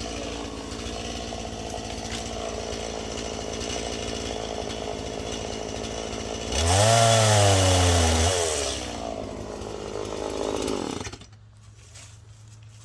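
Stihl chainsaw running steadily. About two-thirds of the way through it is revved hard: the pitch rises and then falls over a couple of seconds, then it settles lower and shuts off near the end.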